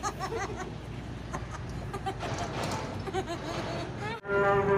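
Children laughing hard in quick, repeated ha-ha-ha runs. About four seconds in it cuts off abruptly and music with a long held note comes in.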